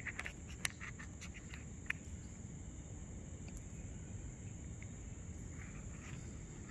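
Faint, steady high-pitched chorus of night insects, with a few light clicks in the first two seconds over a low background rumble.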